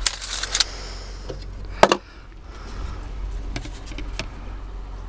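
Handling noise from a tape measure and a plywood template against the boat's cabin side: a quick run of rattly clicks, then one sharp knock about two seconds in and a few fainter taps, over a steady low hum.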